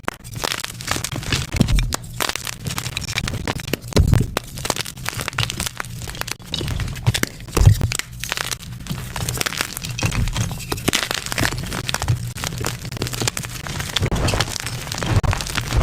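A homemade chalk block being crushed and crumbled, giving a dense, irregular run of crunches and crackles with a few louder cracks.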